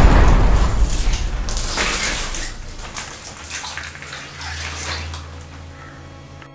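Metal chain clinking and scraping across a wet concrete floor, with water splashing. It opens with a heavy low boom and fades away, as a low steady drone comes in about four seconds in.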